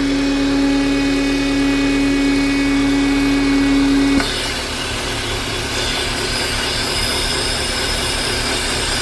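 Renault Oroch engine idling with a loud, steady tone over it: the strange noise that the mechanic puts down to a faulty PCV valve. About four seconds in the tone cuts off suddenly, leaving only the plain sound of the idling engine.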